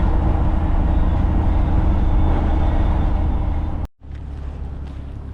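Steady engine and road rumble of a moving vehicle, which cuts off abruptly about four seconds in and gives way to a quieter steady low hum.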